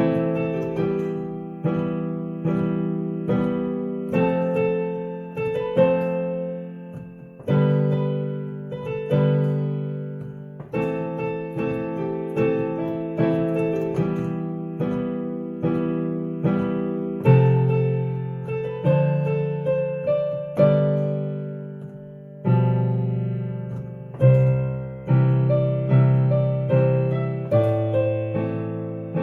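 Piano playing a steady sequence of chords, each struck with a bass note and left to ring and fade, about one a second, with short breaks between phrases. The chords run as a chord-progression exercise.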